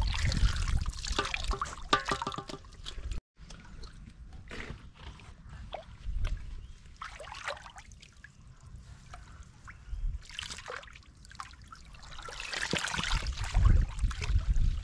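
Water sloshing, splashing and trickling as a woven bamboo scoop basket is swept through a shallow pool and lifted out, water draining through its weave. The splashing is loudest in the first few seconds and again near the end, with quieter drips and splashes in between.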